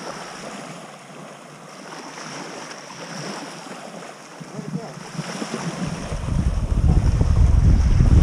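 Small waves lapping at the water's edge, with wind buffeting the microphone from about six seconds in, a loud low rumble that drowns out the rest.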